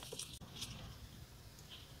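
Faint handling of paper and sticker sheets: a few light rustles and ticks in the first half-second, then near-quiet room tone.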